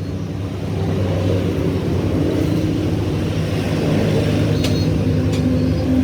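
An engine running steadily at an even speed, with two faint clicks near the end.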